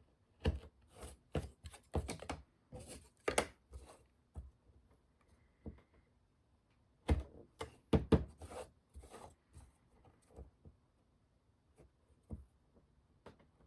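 Light wooden clicks and knocks as small wooden model-kit parts are handled and set down on a workbench, coming in two bursts with quieter gaps between.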